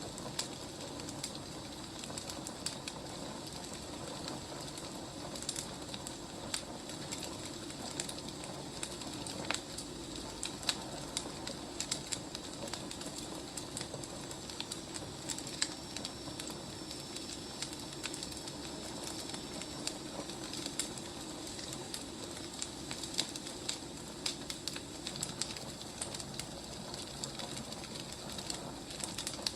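Wood fire crackling: a steady low hiss with frequent small sharp pops and snaps. A faint, thin, high whistle holds for several seconds around the middle.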